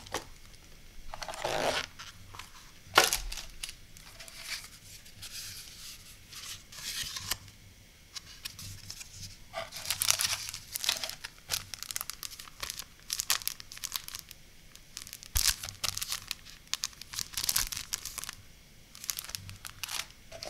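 Hands handling packaging: a cellophane sleeve and plastic wrappers crinkling, paper and cardboard rustling in irregular short strokes, with a few sharp taps, the loudest about three seconds in.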